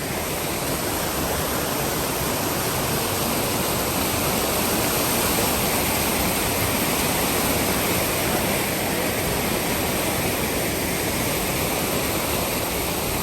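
Steady rushing of a waterfall, the river's water pouring without a break, growing slightly louder over the first few seconds and then holding.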